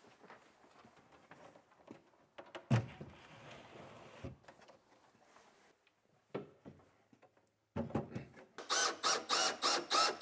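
Wooden base cabinets being set in place and worked on: scattered light knocks and a thump against the cabinet, then near the end a fast, even scraping of about four strokes a second.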